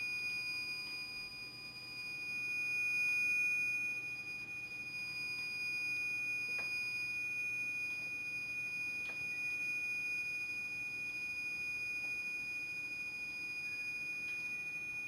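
MagnaSpot ceiling locator receiver giving a steady, continuous high-pitched tone as it picks up the transmitter's signal and is moved toward the spot above it. A couple of faint clicks are heard from handling.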